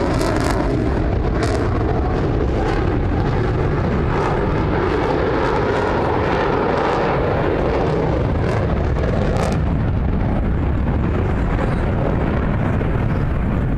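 Aircraft engine noise from an airplane flying an aerobatic display, a steady loud roar that swells around the middle and eases off toward the end.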